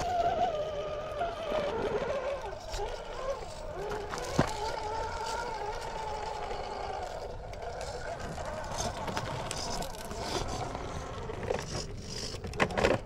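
Brushless motor and drivetrain of a 1/10-scale Traxxas TRX4 rock crawler whining under load as it crawls over rock, the pitch rising and falling with the throttle. A sharp knock comes about four seconds in, and a few clicks near the end as the tyres and chassis strike the rock.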